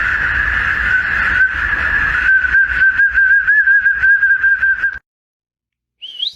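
A dog's long, high whine that wavers in pitch and cuts off abruptly about five seconds in, followed by a short rising squeak near the end.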